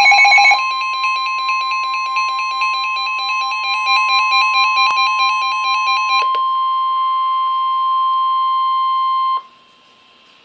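Emergency Alert System warning tones: a brief burst of digital data tones at the start, then a steady alert tone of about 1 kHz lasting about nine seconds. A rapid beeping pattern sounds over it for the first six seconds, and the tone cuts off abruptly.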